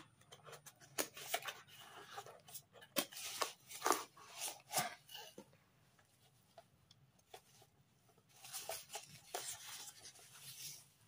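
Cardboard box and packing wrap being handled during an unboxing: rustling and crinkling with scattered clicks and scrapes. It comes in two spells, a busy one at the start and a second a little past the middle, with a lull between.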